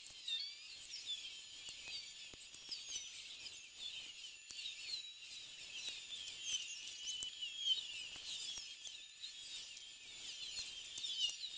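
Many small birds twittering and chirping in a busy, unbroken chorus of short high calls, with scattered faint clicks.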